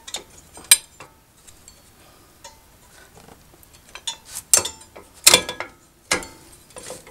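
Steel rear drum brake shoes and their bottom return spring clinking and clacking against the backing plate as they are worked into place by hand: a handful of sharp metallic clacks with a short ring, the loudest about two-thirds of the way through.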